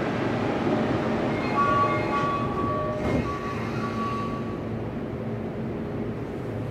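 Running sound inside a Toei 10-300 series subway car: traction-motor and inverter whine over a steady wheel-and-rail rumble, with a short falling whine about three seconds in.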